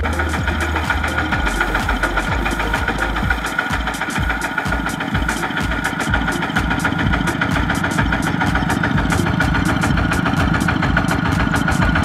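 A two-wheel walking tractor's single-cylinder diesel engine running at low revs with a slow, steady chugging and a light knock.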